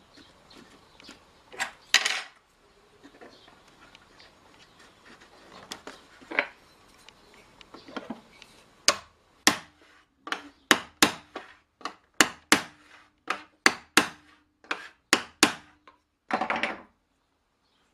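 Hammer blows on a metal hoop driver, tapping a metal hoop down onto a small oak barrel: a few scattered taps, then a run of about a dozen sharp knocks, roughly two a second, and a short scrape near the end.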